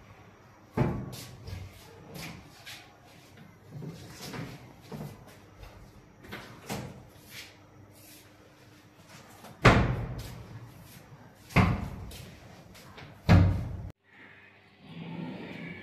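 Lift-up kitchen wall cabinet doors of UV high-gloss board on gas struts, swung open and banged shut. There are four loud bangs, about a second in and three more near the end, with lighter knocks between them.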